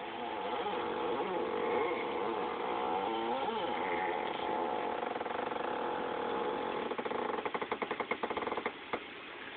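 Abnormal steering noise in a TOBE M'car: a wavering, pitched groan that turns into a rapid stuttering chatter near the end and stops suddenly.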